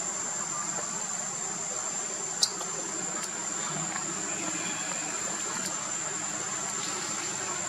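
Steady high-pitched insect drone from a chorus of insects, over a wash of background noise, with one sharp click about two and a half seconds in.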